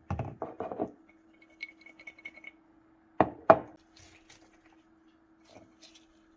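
Dishes and utensils knocking and clinking: a quick run of knocks, a faint brief ring, then two sharp knocks about three seconds in, followed by small clicks.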